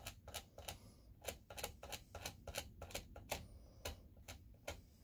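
Small screwdriver tip scraping the insulation off the end of a projector's color wheel cable to expose the wires: a quick, slightly uneven series of short scratchy ticks, about three a second.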